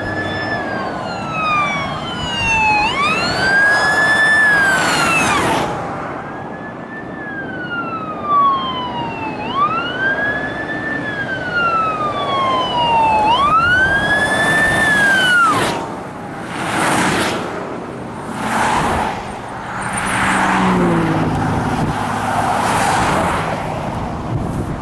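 Police car siren wailing, sweeping up and down over and over, then cutting off about fifteen seconds in. After that, vehicles rush past several times with tyre and wind noise on the wet interstate.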